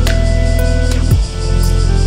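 Calm background music, with low held notes changing about once a second and light ticks on top.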